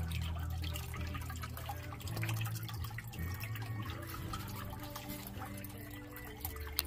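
Water trickling and dripping in a small reptile-enclosure pond over a steady low hum, with one sharp click near the end.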